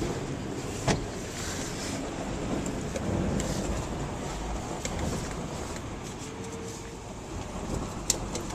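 Motor vehicle noise on a street: a steady engine and traffic rumble, with a sharp knock about a second in and another near the end.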